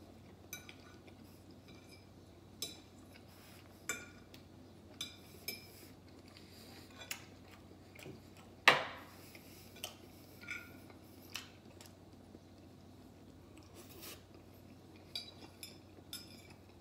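A metal fork clinking and scraping on a plate while eating, in scattered separate taps, with one sharper clink a little past halfway.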